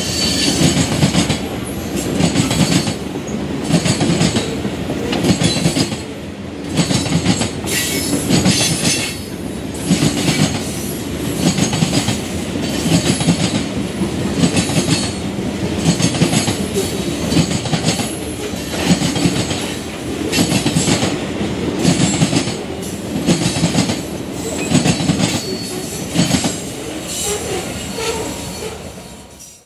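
CSX freight train cars rolling past, wheels clacking over the rail joints in a steady rhythm that pulses about every second, with a faint high wheel squeal.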